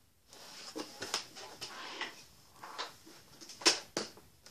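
Handling noise at a tabletop: soft rubbing and scattered small knocks and taps as things are moved by hand, with two sharper knocks near the end.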